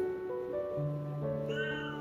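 Soft background music of held notes, with a single short cat meow about one and a half seconds in that rises and falls in pitch.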